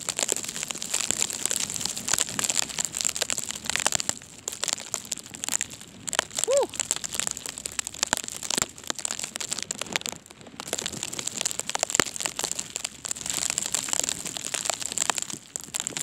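Continuous crinkling and crackling rustle close to the microphone: handling noise from the phone being carried and rubbed while walking through the snow, irregular, with no steady rhythm.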